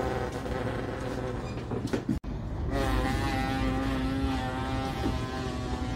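A boy imitating a pressure washer's motor with his voice: a long, steady droning hum. It breaks off suddenly about two seconds in and starts again.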